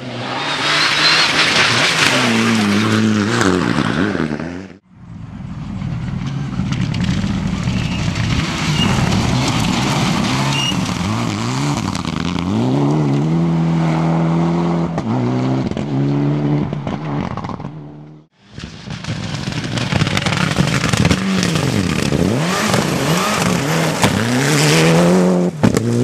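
Rally cars' engines revving hard, rising and falling in pitch through gear changes as the cars slide past on a loose, dusty stage, with tyre and gravel noise. The sound cuts off abruptly twice, about five seconds in and again at about eighteen seconds, between three separate passes.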